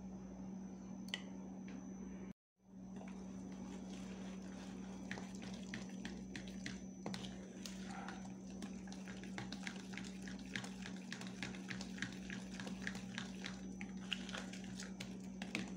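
A metal spoon stirring a thick, wet batter in a plastic tub: quick repeated ticks of the spoon against the tub, several a second, with a soft wet squish.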